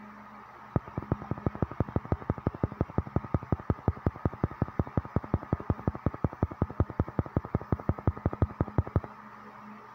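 Rapid, even clicking, about six or seven clicks a second, one for each tap on a phone app's 'Tap' button. It starts just under a second in and stops abruptly about nine seconds in.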